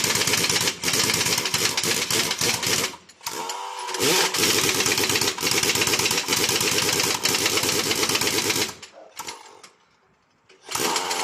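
Air tool rattling rapidly and loudly during a tire repair, with a short break about three seconds in, then stopping near the end.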